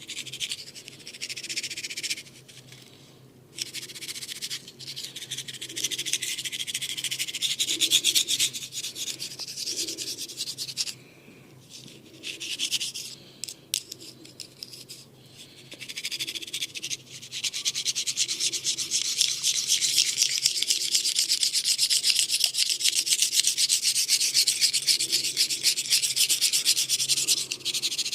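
Massage rubbing: rapid, repeated strokes of hands working over a person, heard as a bright scratchy hiss. It comes in bouts with short pauses at first, then runs on without a break over the second half.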